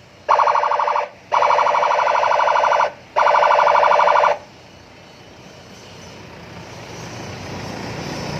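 A car-mounted police-escort siren sounds three loud, buzzy blasts of one steady pitch, the first short and the next two longer. After them a low, noisy hum grows steadily louder.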